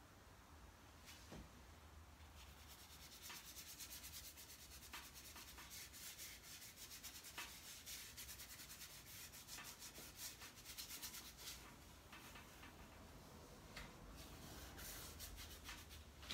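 Faint scratchy rubbing of a paintbrush working gesso across paper in quick repeated strokes, busiest through the middle and again near the end.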